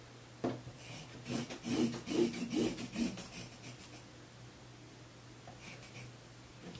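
Chalk scratching across denim fabric as a straight marking line is drawn along a wooden yardstick, in several strokes over about three seconds, with one more short scratch near the end.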